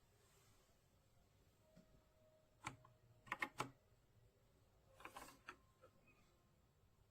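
A few scattered clicks from a mechanical gaming keyboard: one about two and a half seconds in, three in quick succession soon after, and a short cluster about five seconds in.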